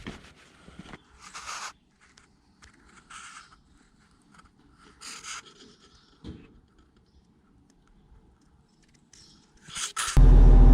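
A handful of short scrapes with quiet gaps between them, from hand work on the skid steer. Near the end, the skid steer's engine cuts in suddenly, running loud and steady.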